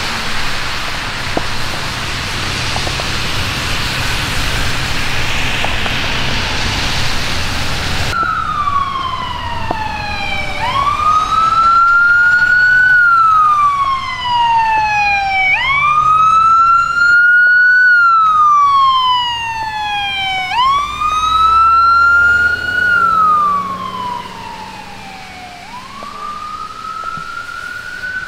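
Traffic hissing on a wet road for the first several seconds, then an emergency vehicle's wail siren, rising and falling slowly, about one cycle every five seconds.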